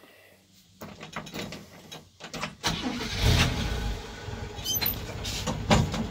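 1965 GMC truck's 250 straight-six cranked on the starter for about two seconds, then catching at about the third second and running on at a rough idle, which the owner thinks needs a couple of turns of the idle screw.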